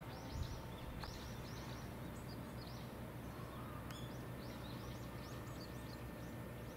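Small birds chirping, many short high notes in quick repeated runs, over a steady low background rumble.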